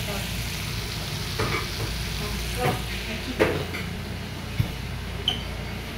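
Metal spoon stirring and scraping through coconut-milk stew in a metal pot, with a few sharp clinks against the pot over a steady hiss.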